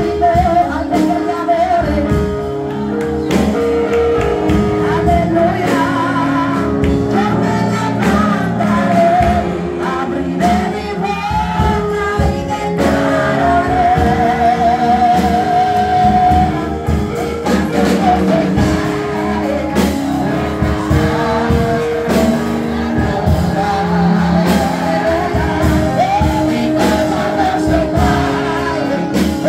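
A woman singing a worship song into a microphone over a PA in a reverberant hall, with live instrumental backing of held chords and a percussive beat.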